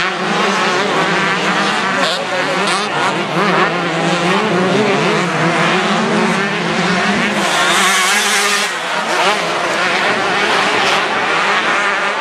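Motocross bike engines revving hard and shifting pitch up and down as riders race around a dirt track.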